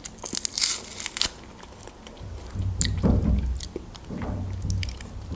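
Dried fish pulled apart by hand, its dry skin and small bones crackling and snapping in sharp clicks, thickest in the first second or so. Close-miked chewing follows.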